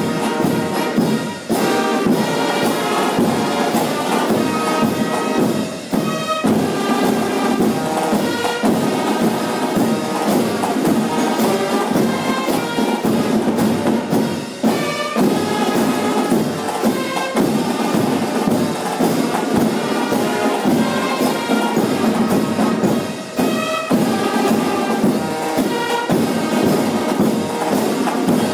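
Music with brass instruments and percussion, playing steadily without a break.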